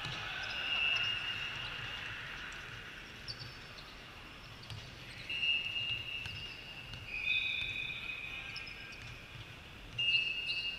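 Sneakers squeaking on a volleyball court surface: several short, high squeals at different pitches, some overlapping, carried on the echo of a large hall.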